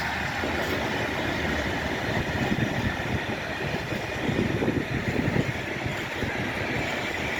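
Freight train of open Eas and Eanos wagons rolling past: continuous wheel-on-rail running noise, with louder rattling clatter twice in the middle.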